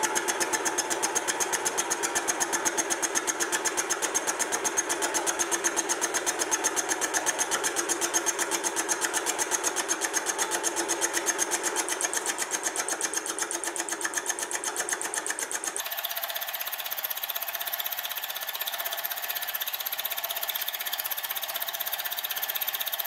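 Mini vertical mill running a carbide fly cutter through a light facing cut on a cold rolled steel block, a fast, even ticking as the single cutting tip strikes the steel on every turn over the steady run of the mill. About two-thirds of the way through the lower, heavier part of the sound drops away, leaving a thinner, higher sound.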